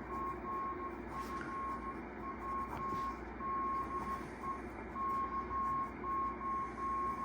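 Morse code (CW) from an amateur radio station, heard through a shortwave receiver's speaker: a single steady-pitched tone keyed on and off in dots and dashes over a bed of receiver static hiss.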